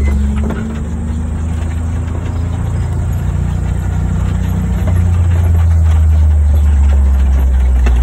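Utility vehicle's engine running as it drives, a steady low drone that eases off slightly about a second in and builds again about five seconds in.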